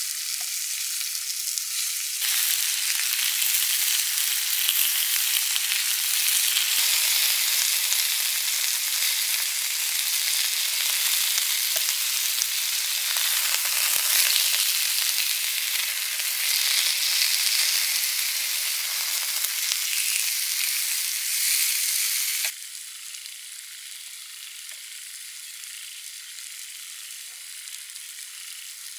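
Slices of beef sizzling and frying in a hot pan, with a few faint clicks of chopsticks against the pan. The sizzle swells about two seconds in and drops suddenly to a quieter sizzle about three-quarters of the way through.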